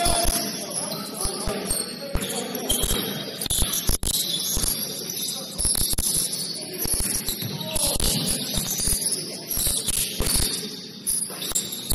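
Basketball game sounds on a gym court: the ball bouncing in repeated knocks, high sneaker squeaks, and players' voices calling.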